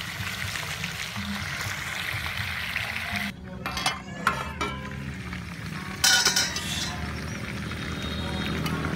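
Metal clinks of a spoon against an aluminium pot lid about four seconds in, then a louder, brief scraping clatter about six seconds in as the lid is lifted off the pot. A steady sizzling hiss runs underneath.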